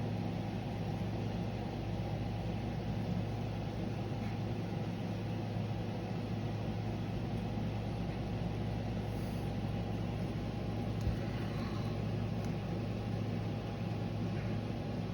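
Steady low machine hum, like a fan or motor running, with an even whirring noise. There is a faint click about eleven seconds in.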